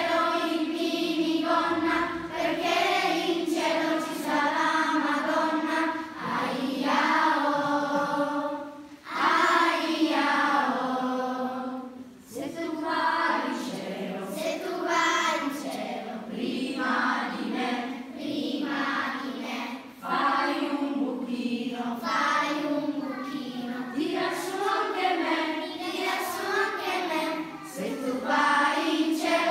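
Children's choir singing a song together, phrase after phrase with short breaks between lines.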